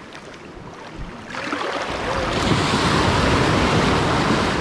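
Ocean surf: a wave breaking and rushing in, swelling about a second in into a loud, even roar.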